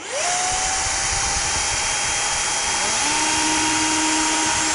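Cordless stick vacuum switching on and running with a steady whine. About three seconds in a Milwaukee cordless drill spins up and runs briefly over it, pre-drilling a 7/64-inch pilot hole into a wall stud.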